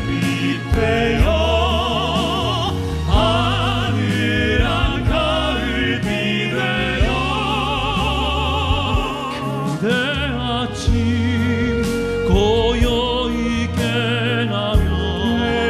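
Three male pop-opera singers singing an operatic-style ballad with strong vibrato, in turn and together, over a sustained instrumental accompaniment.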